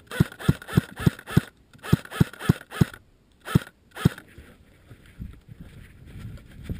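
An airsoft AK rifle fired in quick single shots, about a dozen sharp cracks at three to four a second with two short breaks, over the first four seconds. After that come softer rustling footsteps through dry leaves.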